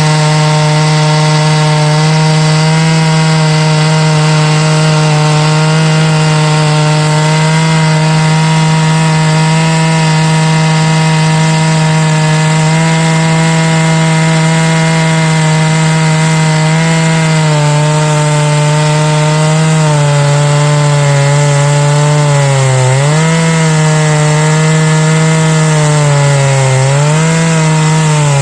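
Large two-stroke chainsaw ripping oak lengthwise in a chainsaw mill, running steadily at high revs under load. Its revs dip briefly twice near the end as the cut loads it down.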